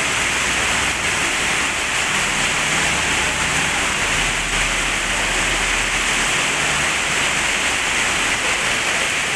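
Heavy tropical downpour: a dense, steady hiss of rain falling.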